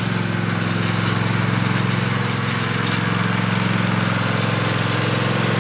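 Riding lawnmower engine running steadily, an even drone.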